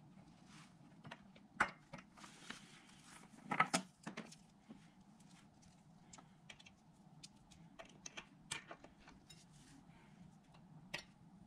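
Scattered clicks and knocks of cables being handled and plugged into a subwoofer's Dayton Audio plate amplifier: first the power cord, then the signal cables. The loudest knocks come about one and a half and three and a half seconds in, over a faint steady hum.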